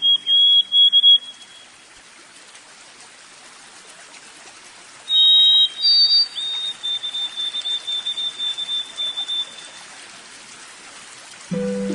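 Running stream water, a steady wash, with a small bird's high repeated notes: a short series at the start, and a longer run of quick chirps from about five seconds in. Soft music with sustained low tones comes in just before the end.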